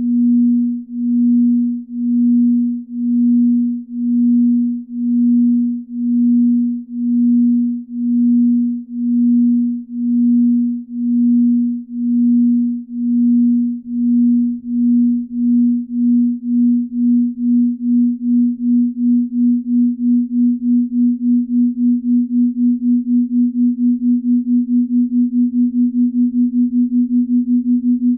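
Binaural-beat sleep tone: a single steady low pure tone whose loudness swells and fades about once a second, then from about halfway through the pulsing speeds up steadily until it beats several times a second.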